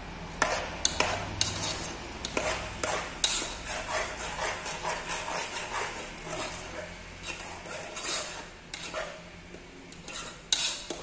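A metal spoon stirring thick oat porridge in a metal saucepan, clinking and scraping against the pot's sides and bottom in quick, irregular strokes.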